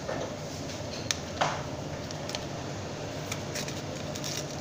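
Steady low hum of air conditioning, with a few light clicks and one short, sharp rustle about a second and a half in from Pokémon cards being handled.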